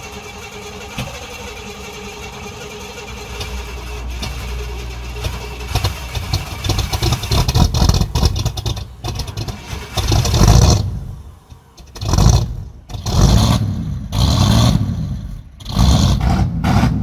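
An old Cadillac's engine, running low and steady at first, then revved hard in repeated surges from about six seconds in, dropping away briefly between blips.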